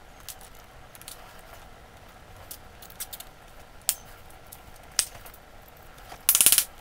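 Small clicks and snips of a cutting tool and of hands working a bundle of blue electrical wires, with single sharp clicks about four and five seconds in. Near the end comes a quick run of rapid clicks as a connector cap is worked onto the bare ends.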